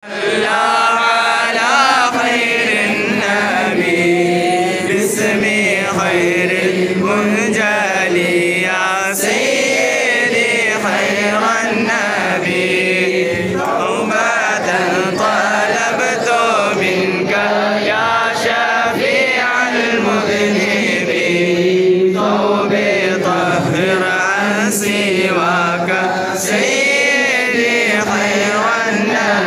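Men's voices chanting an Arabic devotional baith together in a continuous melodic chant, with a voice carried on a microphone.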